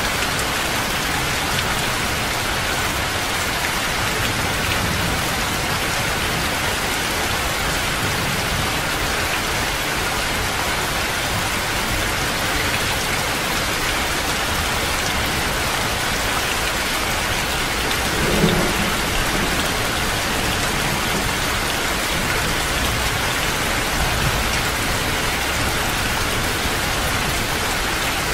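Heavy rain falling steadily, with a brief low rumble of thunder a little past the middle and a fainter one later.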